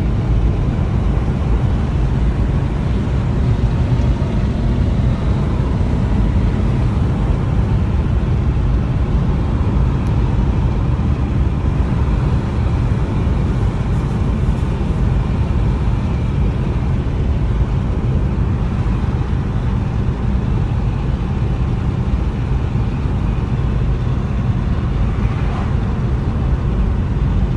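Steady road and engine noise inside a moving car's cabin: a constant low rumble with no change in pace.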